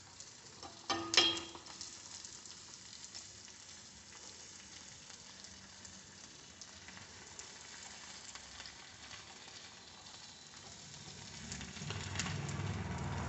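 Melted alum sizzling faintly and bubbling on a hot iron pan as it dries out, its water escaping as bubbles, the stage at which alum is being calcined into ash. A couple of sharp knocks come about a second in.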